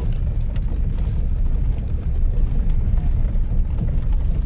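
Steady low rumble of a car driving slowly over a rough dirt lane, heard from inside the cabin, with a few light knocks.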